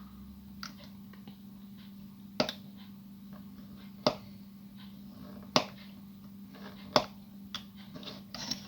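Sharp separate clicks, about one every second and a half, from a hobby knife being worked on a piece of plastic sheet.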